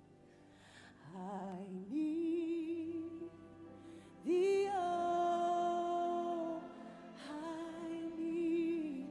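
A woman singing a slow worship song into a microphone over soft, sustained backing music. She comes in about a second in and sings three phrases, each ending on a long held note with vibrato.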